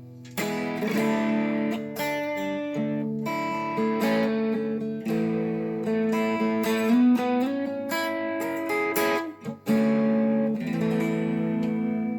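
Fender '72 reissue electric guitar with US vintage pickups being played through an amp: picked chords and single-note lines, with one note bent upward past the middle and a brief pause near the three-quarter mark.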